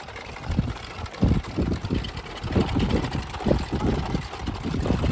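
Wind buffeting the microphone: irregular low rumbling gusts, strongest from about a second in onward.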